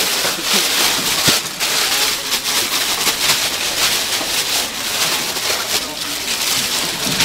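Thin plastic bag crinkling and rustling as gloved hands work it down into a heap of raw sliced meat to scoop it up.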